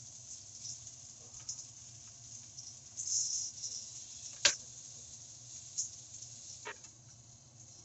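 Chicken thigh and carrot sticks sizzling in a frying pan, a steady crackly hiss over the low hum of a kitchen range hood fan. A sharp click about four and a half seconds in, and a fainter one about two seconds later.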